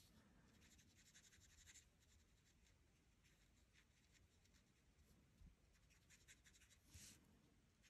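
Faint scratching of a Stampin' Blends alcohol marker nib on cardstock in small colouring strokes, blending two shades. It comes in two spells, for about the first two seconds and again briefly near the end, and is very quiet in between.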